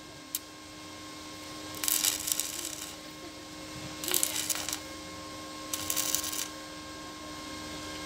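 Stick (arc) welding on a steel tractor plough frame: the arc crackles in three short bursts of about a second each, near two, four and six seconds in, with a small click just after the start.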